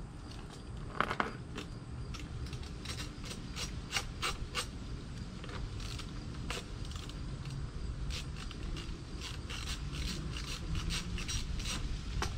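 Irregular metallic clicks and clinks of hand tools working on a motorcycle's underside as fasteners are loosened by hand, over a low steady rumble.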